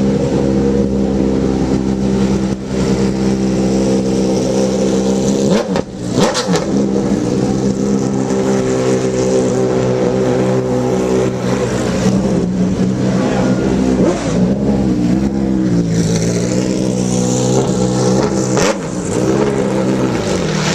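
Race car engine running at steady, high revs, its note held nearly constant, with brief drops and blips in revs about six seconds in and again near the end.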